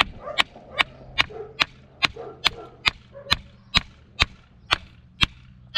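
Removed starter motor from a Case 580 backhoe being bench-tested on a battery: a sharp metallic click about two and a half times a second, evenly spaced. The starter engages but does not spin, and the owner judges it bad.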